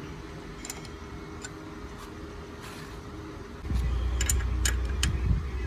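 An engine running with a steady low hum, broken by a few sharp metallic clicks and ticks; about two-thirds of the way through, a much louder low rumble comes in and holds.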